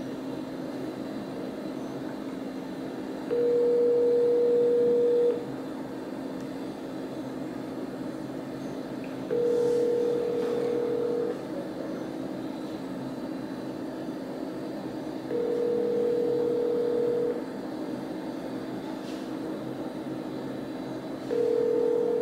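Telephone ringback tone through a smartphone's speaker: four steady two-second rings about six seconds apart, over a faint steady hum. The call is ringing with nobody picking up.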